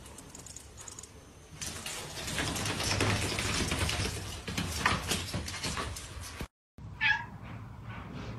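Domestic cat giving one short meow about seven seconds in. Before it comes several seconds of rough, noisy rustling that cuts off abruptly.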